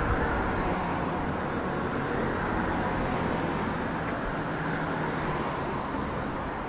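City street ambience: steady road traffic noise from passing cars.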